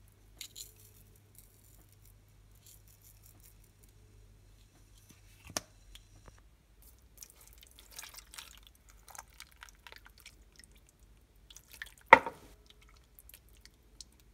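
Beef stock being poured from a cup into a ceramic slow-cooker crock over a beef tongue and vegetables, with soft splashing and scattered small clicks. A sharp clink sounds about twelve seconds in.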